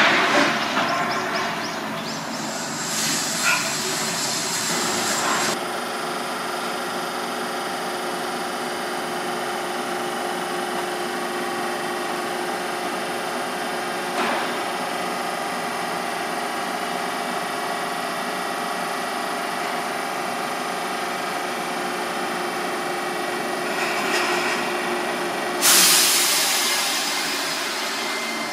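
Seibu 8500 series rubber-tyred guideway train pulling away from a station platform, with a steady running hum and several faint steady tones. There is a sharp knock at the start, a hiss of air lasting a couple of seconds about three seconds in, and a louder hiss near the end that fades off.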